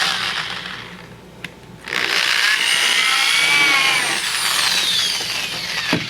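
Power drill boring a pilot hole into a wooden table leg. It runs until about a second in, stops briefly with a click, then runs again for about three and a half seconds, its pitch sagging under load before it winds down.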